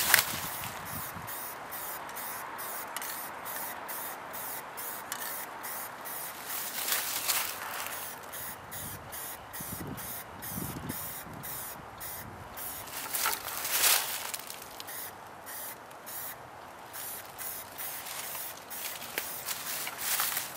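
Aerosol spray-paint can hissing steadily as a coat of paint is sprayed, with a couple of louder passes.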